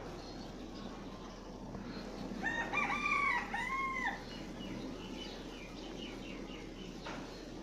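A rooster crowing once: a call of several arched, rising-and-falling notes lasting under two seconds, about two and a half seconds in.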